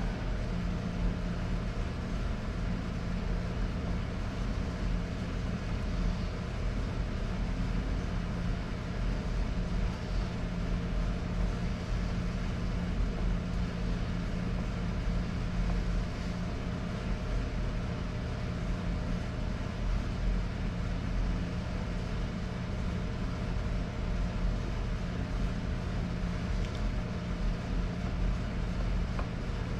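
Steady low mechanical hum, unbroken and even throughout.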